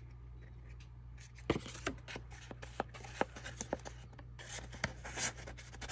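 Paper pages of a handmade junk journal being handled and turned: soft rustling with scattered small taps and crinkles, starting about a second and a half in, over a low steady hum.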